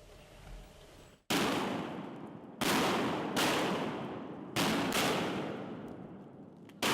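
A volley of shotgun blasts: six shots in about five and a half seconds, irregularly spaced, each ringing out and fading slowly. It is waterfowl hunters firing at incoming ducks.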